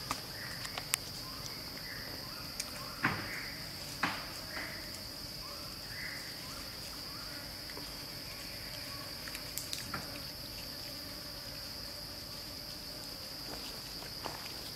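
Steady high-pitched drone of insects in the forest, with a few sharp crackles of dry leaf litter underfoot and faint short calls in the first half.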